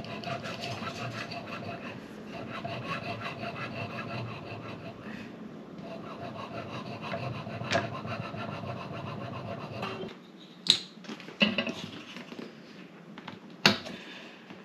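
Wire cake leveler sawing back and forth through a sponge cake, a steady rubbing noise. After about ten seconds it stops, and a few sharp clicks and knocks follow.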